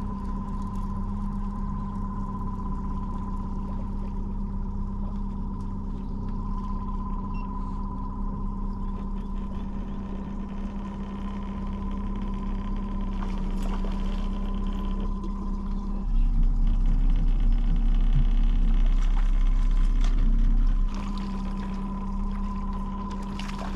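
A small boat's motor running steadily at slow trolling speed, a constant hum with water sloshing along the hull. About sixteen seconds in the motor grows louder and deeper for some five seconds, then settles back to its earlier level.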